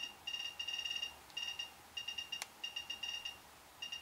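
SOEKS handheld radiation dosimeter beeping in irregular clusters of short, high electronic beeps, its warning for a dangerous radiation background reading. One sharp click about two and a half seconds in.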